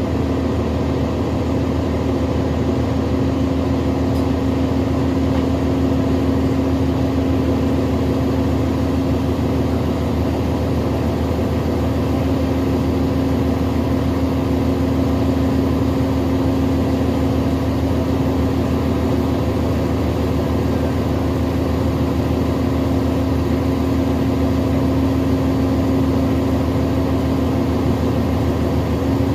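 2020 New Flyer XD60 Xcelsior articulated diesel bus running at a steady engine speed: a constant low drone with a steady hum, unchanging in pitch and loudness.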